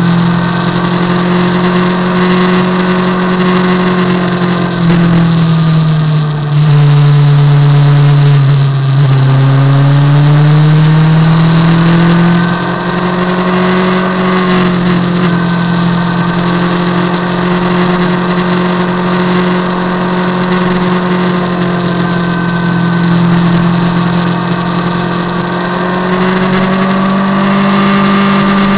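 Motorcycle engine running under way at a steady cruise. About five seconds in its note drops and it gets louder, then it climbs back to the earlier steady pitch about twelve seconds in, as the bike is ridden through the curves.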